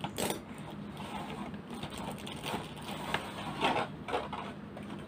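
Scattered clicks, taps and rustling of packaging and a plastic lightstick being handled while it is unboxed.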